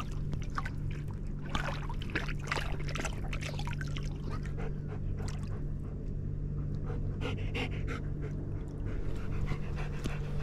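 German Shepherd standing in shallow river water, lapping water and panting, with small splashes and trickles around it. A steady low hum sits beneath.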